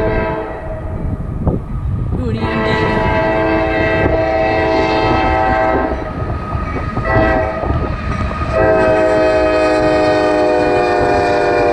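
CSX freight locomotive air horn sounding the grade-crossing pattern. One blast ends about a second and a half in, then comes a long blast, a short one and another long one, over the low rumble of the approaching train.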